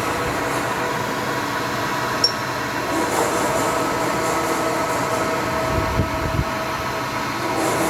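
CNC lathe running steadily while ball burnishing with an indexable diamond tool: a constant machine hum with several held tones. A brief sharp tick comes a couple of seconds in, and a short low thump about six seconds in.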